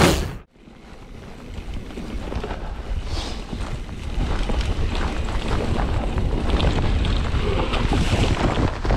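Mountain bike riding heard from a helmet or chest camera: wind buffeting the microphone over the low rumble of tyres on a dirt trail, with scattered rattling clicks from the bike. It comes in after a brief silence about half a second in and grows louder over the next couple of seconds.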